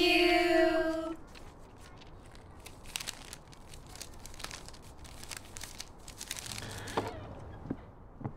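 A held sung note ends about a second in, then paper banknotes rustle and crinkle faintly as they are handled, with scattered small crackles.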